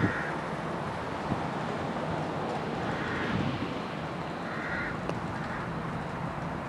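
Wind buffeting the microphone over a steady outdoor hiss, with a bird giving short calls a few times.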